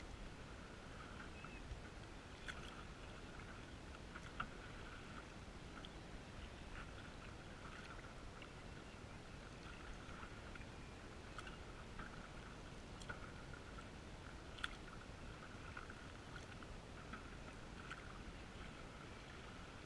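Canoe paddles dipping and pulling through calm water alongside a metal canoe, a faint, steady wash with a few sharp clicks or knocks spread through it. The sound is muffled by the GoPro's waterproof housing.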